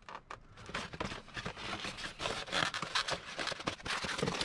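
Cardboard box and foam packaging scraping and rustling in irregular strokes as a car speaker set in its foam tray is slid out of the box.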